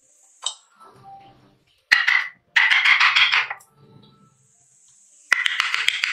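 Wood carving chisel cut into the wood with a wooden mallet. There are three scraping, crunching bursts of about half a second to a second each, with sharp knocks at the start of the first and the last.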